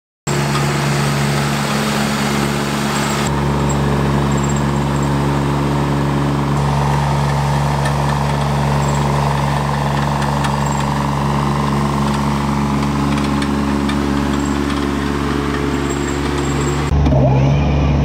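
Tracked mini skid steer's engine running steadily, driving an S14 stump grinder attachment whose cutting wheel spins free above the stump. The sound starts suddenly just after the beginning and shifts abruptly in tone a few times, growing louder near the end.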